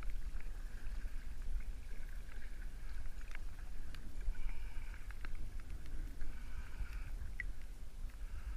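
Kayak paddling on calm water: the paddle blades dip and drip, with scattered small clicks and splashes over a steady low rumble.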